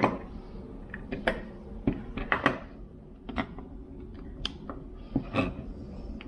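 Irregular clicks and light knocks of small audio gear being handled, about a dozen over a few seconds, as the headphone connection is switched between a portable music player and a headphone amplifier.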